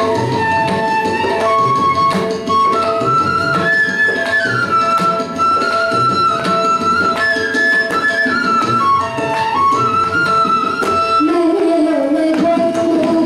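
Bamboo flute playing a melodic interlude of held, stepping notes, with tabla strokes beneath it and a steady drone. Near the end a child's singing voice comes in as the flute drops out.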